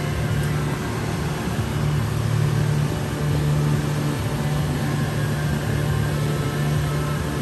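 Surface grinding machine running with a steady, even motor hum.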